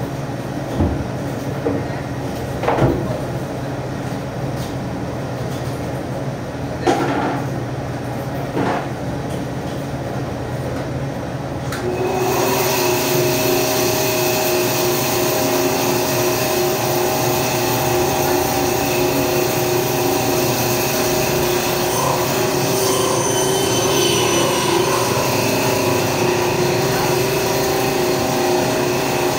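A few scattered knocks, then about twelve seconds in an electric machine starts and runs steadily, a constant hum with several steady tones and a hiss.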